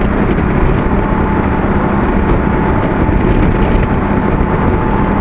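Steady wind rush and road noise from a Honda Africa Twin CRF1000 DCT at motorway speed, about 120 km/h, with the parallel-twin engine running evenly underneath and wind rushing over the microphone.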